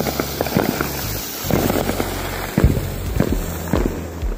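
Small spinning helicopter firework ('Jelly Fish') hissing as it sprays sparks and lifts off, with irregular sharp crackling pops, a loud one about one and a half seconds in and another near the middle.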